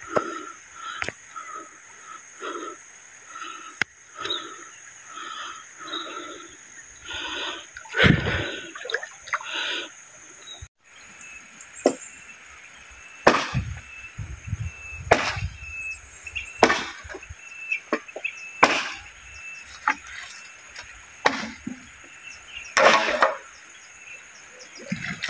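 Machete blade chopping green bamboo poles: sharp single chops about every one and a half to two seconds through the second half. Before that comes a pulsing insect chorus with an occasional knock.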